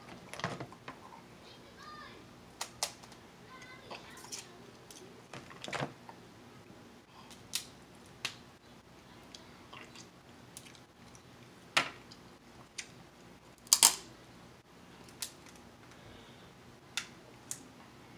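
Cooked snow crab and blue crab shells being snapped and cracked apart by hand: a string of sharp cracks and clicks at irregular spacing, the loudest a double crack about three quarters of the way through.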